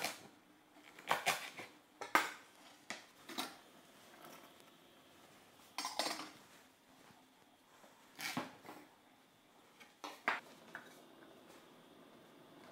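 A chef's knife chopping on a wooden cutting board, a handful of irregular strikes in the first few seconds, followed by a few scattered clanks of stainless-steel pot lids and pans.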